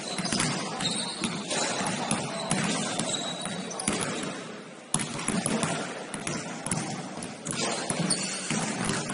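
Basketball bouncing on a gym floor during a game, sharp thuds at an irregular pace, under players' indistinct voices.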